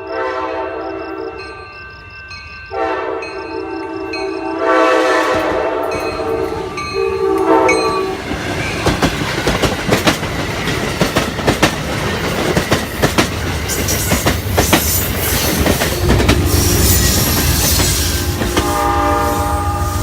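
Horn of the Amtrak Downeaster's leading cab car, NPCU 90214, sounding a blast that ends about two seconds in, then a long blast of about five seconds. The train then passes close by with its wheels clattering over the rail joints, and the horn chord sounds again near the end.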